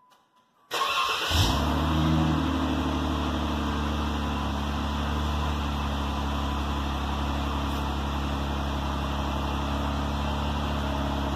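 A 2017 Jeep Wrangler's 3.6-litre V6 starts about a second in through a newly fitted Dynomax axle-back exhaust, revs briefly, then settles into a steady idle, heard from right behind the tailpipes.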